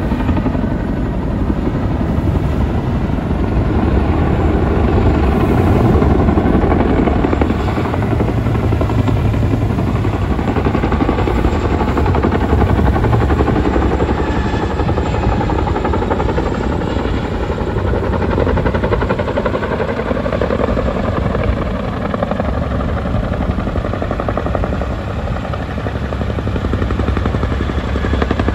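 Chinook tandem-rotor helicopter hovering, its two rotors beating steadily in a loud, unbroken drone.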